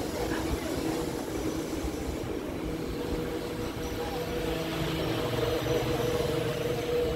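Steady rumble of a passenger train, with a constant machine hum running under it.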